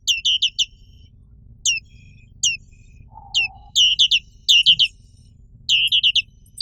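Black-capped white-eye (Zosterops atricapilla) calling: short, sharp, high notes that slide steeply downward, given singly and in quick runs of three or four.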